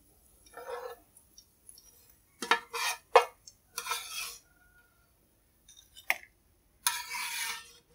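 Metal spoon scraping and clinking against a wok as fried tofu is scooped out, in several short irregular strokes, with a longer scrape near the end.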